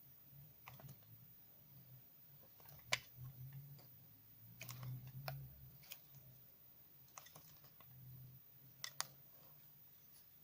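Laundry soap coated in washing powder crunching and cracking under handling: about a dozen sharp, crisp cracks at uneven intervals, the loudest just before three seconds in, over a faint low rumble.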